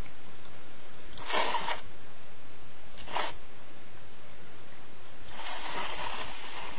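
Bowl scraping across a hard floor in three short noisy bursts, the last the longest at about a second and a half, as the cats push it about while drinking.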